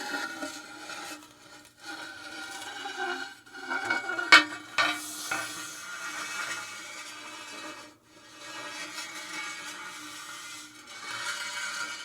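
Metal rod being slid in, scraping against metal with a steady ringing tone, in several long strokes broken by short pauses. Two sharp clanks come about four and a half seconds in, the first being the loudest sound.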